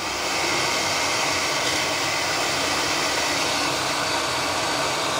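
BWD5-40 stainless-steel variable-speed booster pump running under load, with water rushing through the test pipework and flow meters as a steady hiss. About half a second in it grows a little louder as a valve is opened for more flow, and the drive speeds up to hold 4.5 bar.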